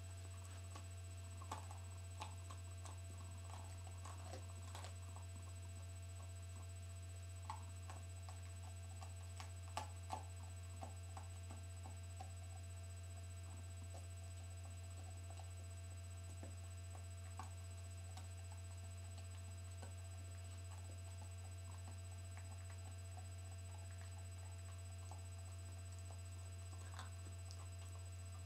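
A dog gnawing a veal brisket bone, its teeth making irregular sharp clicks and cracks on the bone, most of them in the first half, over a steady low electrical hum.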